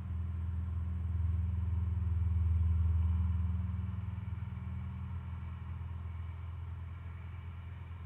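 Low engine rumble of a passing motor vehicle, swelling for about three seconds and then slowly fading.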